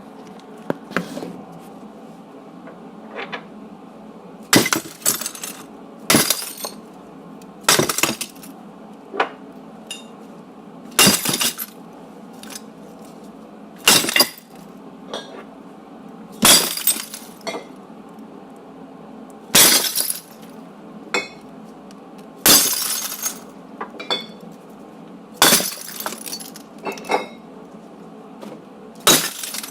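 Glass breaking again and again: about ten separate smashes a few seconds apart, each with a short ringing tail, with smaller clinks of glass between them.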